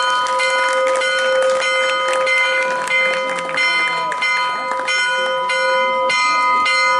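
Church bells ringing in a quick festive peal, struck about two or three times a second.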